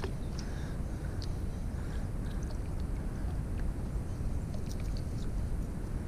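Wind rumbling on the microphone, with faint ticks and soft scratchy sounds every half-second or so as a baitcasting reel winds in line fouled with a thick clump of pond grass.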